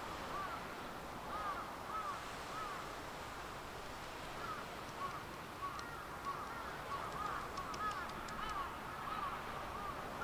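Several birds calling over and over, short arching calls overlapping each other against a steady background hiss, with a few faint clicks about halfway through.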